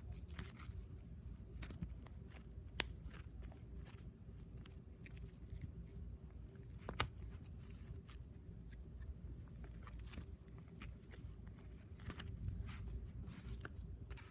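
Pink acrylic-paint slime being squished and poked by hand, making irregular small sticky clicks and crackles, with two sharper clicks about three and seven seconds in, over a low steady rumble.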